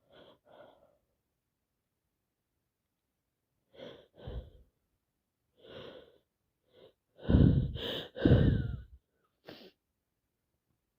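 A person with a head cold sniffing and breathing in short, separate snatches, building to two loud sneezes in quick succession about seven seconds in, then one more short sniff.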